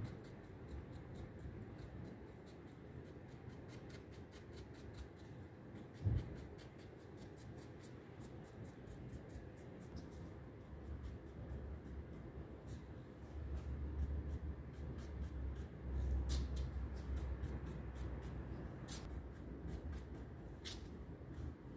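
Bristle brush scrubbing and dabbing across a carved gilded wooden frame: a quick run of faint, scratchy strokes. A single thump comes about six seconds in, and a low rumble sets in during the second half.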